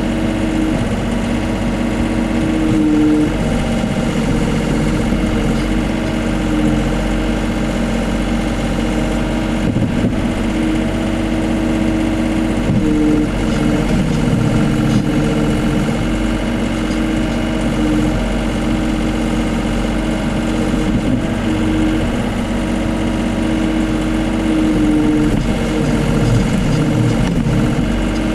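Case CX39B mini excavator's diesel engine running steadily under the boom and arm, heard close up from on the machine, with a few tones coming and going as the arm works.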